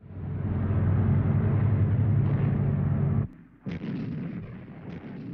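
Steady, loud low drone of a landing craft's engine that cuts off abruptly about three seconds in. After a brief lull comes a run of gunfire and artillery blasts, several sharp reports in quick succession.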